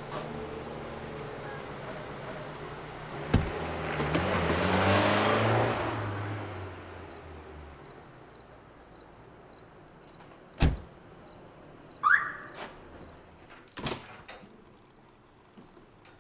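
A car engine running, swelling and rising in pitch with a rush of noise a few seconds in, then fading away. After that, a few sharp knocks of doors shutting, one with a short squeak, over a faint steady high-pitched tone.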